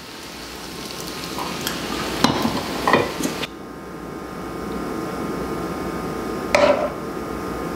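Spaetzle frying in butter in a pan, a steady sizzle, with a wooden spatula stirring and knocking against the pan several times in the first three seconds. The sizzle goes on more quietly after about three and a half seconds, with one short knock near the end.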